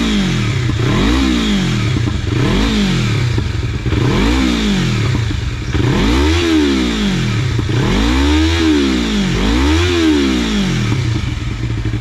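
Yamaha MT-25's 250 cc parallel-twin engine revved repeatedly at standstill through an Akrapovic GP Slovenia slip-on exhaust: about seven throttle blips, each rising in pitch and falling back toward idle. The later revs go higher and last longer, and it settles back to idle near the end.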